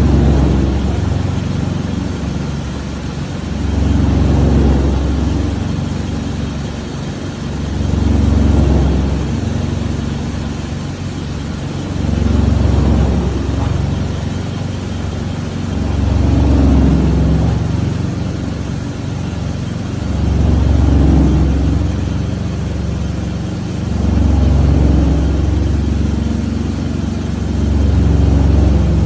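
Drum wood chipper running with a steady low hum, swelling louder and easing off again about every four seconds.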